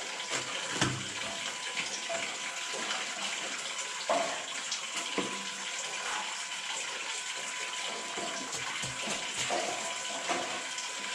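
A hammer knocking on chunks of quartz vein rock a few times, sharp single knocks over a steady rushing hiss.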